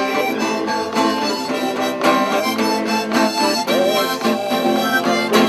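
A man singing to his own strummed acoustic guitar, a held, tuneful vocal line over steady chords.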